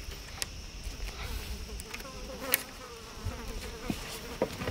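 A flying insect buzzing close by, its pitch wavering, over a steady high-pitched insect drone. A sharp click sounds about two and a half seconds in.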